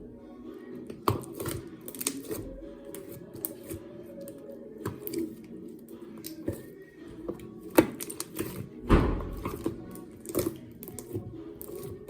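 Slime being squeezed and pressed by hand, making irregular sharp pops and clicks, with the loudest pops about eight and nine seconds in.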